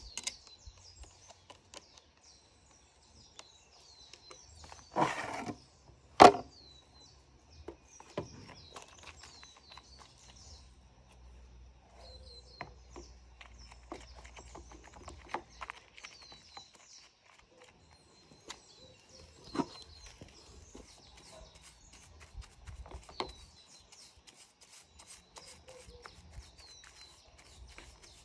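Hands and tools working on a Stihl MSA 120 C battery chainsaw with its motor off: scattered clicks, taps and scraping of plastic and metal parts, a brief hiss about five seconds in followed by a sharp knock, and the rapid scratching of a brush scrubbing the bar near the end. Birds chirp faintly throughout.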